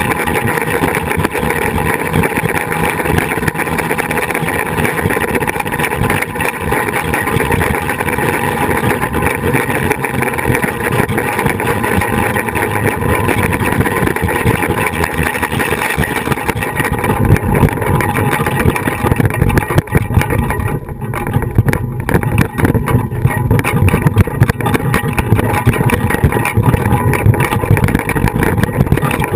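Continuous loud rush with a steady whir, from the flying-fox trolley's pulleys running on the cable and wind on the trolley-mounted camera's microphone. It turns deeper and gustier for a few seconds about two-thirds of the way through.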